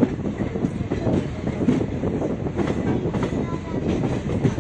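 Passenger train running along the track, heard from the side of a moving coach: a steady low rumble with irregular clacks of the wheels over rail joints and points.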